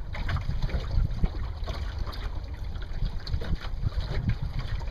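Wind buffeting the microphone in an uneven low rumble, with water splashing and trickling along the hull of a small wooden sailboat, a Welsford Navigator, moving under sail.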